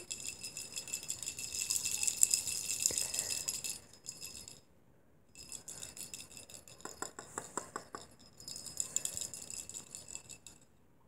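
Red hollow plastic cat jingle ball shaken in the hand, rattling and jingling in two runs of several seconds with a short pause between them.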